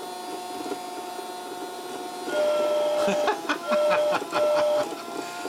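Battery-powered motor of an Apollo micro miniature train set running with a steady hum. About two seconds in, the set's whistle sounds in three short blasts over a run of mechanical clicking.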